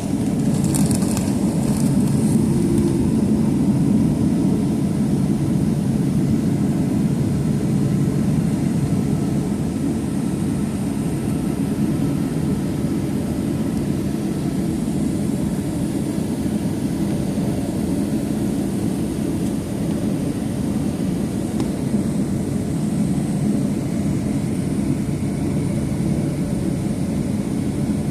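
Boeing 737-800's CFM56 jet engines heard from inside the passenger cabin: a steady, loud, low rumble of engine and airflow noise.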